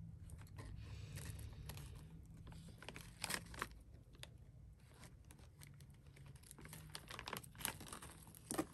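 Clear plastic packaging bag crinkling as bundled power-supply cables are handled and worked loose, with scattered light clicks and a few slightly louder ones about three and a half and seven and a half seconds in.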